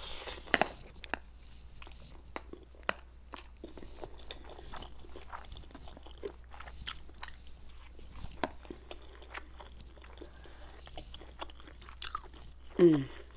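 Close-miked eating of Korean noodles: a slurp of noodles at the start, then chewing with many wet mouth clicks and smacks. Near the end comes a brief hum that falls in pitch.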